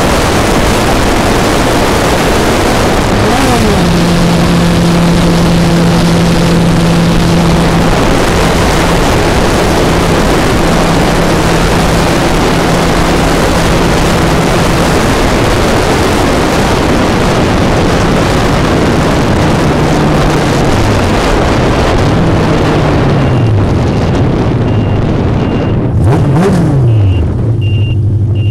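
Yamaha golf cart fitted with a four-cylinder Honda 750 cc motorcycle engine, running at road speed under heavy wind rush. The engine pitch drops sharply a few seconds in and holds steady, then rises and falls several times near the end as the wind noise fades with the cart slowing. A short high beep repeats in the last few seconds.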